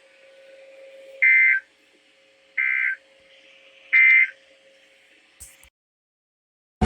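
Emergency Alert System end-of-message signal: three short bursts of two-tone digital data, each about a third of a second long and about 1.3 seconds apart, marking the end of the broadcast test message.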